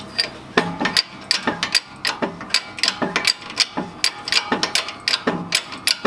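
Shop press being worked in steady strokes, a cluster of metallic clicks with a low thud about every three-quarters of a second, as it forces a still very tight, long-seized piston down out of the cylinder block.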